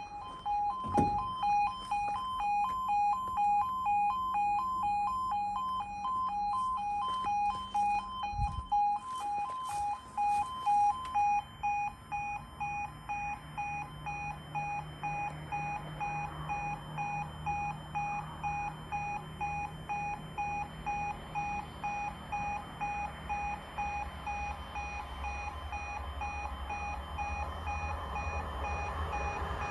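Level crossing warning alarm sounding a steady pulsing two-tone beep. The barrier motor hums while the boom lowers and stops about eight seconds in, and one of the two tones drops out a few seconds later. Near the end a low rumble builds as a train approaches.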